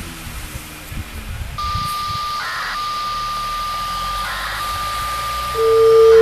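Federal Signal Modulator 6024B outdoor warning siren starting a loud, steady single tone about five and a half seconds in, the alert tone of its monthly test. Before that there is a fainter steady high beep tone, broken by short crackling bursts about every two seconds.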